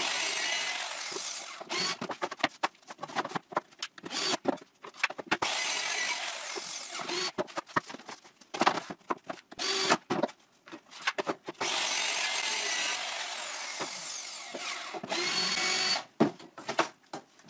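A circular saw runs through plywood in several cutting passes of one to three seconds each. Between the cuts, boards knock and clatter as they are handled. A cordless drill runs briefly near the end.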